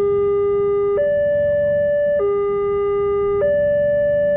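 Railway level crossing's electronic warning alarm sounding a two-tone signal, a lower and a higher tone alternating about every second and a quarter, over a low rumble. The alarm signals an approaching train and the crossing gates closing.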